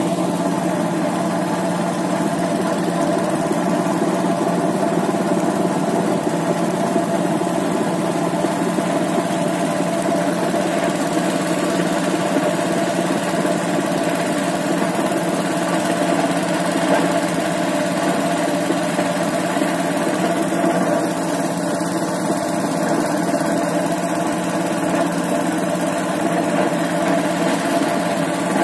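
A compreng boat's small 6.5 hp engine running steadily under way, with an even, unbroken hum.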